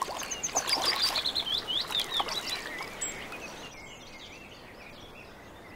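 Small birds chirping: a quick run of short, high, sweeping chirps over the first two seconds or so, then fading to a quieter stretch.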